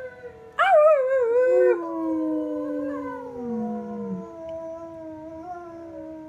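German Shepherd howling along with another dog's howl playing from a laptop: long wavering howls that slide down in pitch and overlap at different pitches, the loudest starting suddenly about half a second in and lasting about a second.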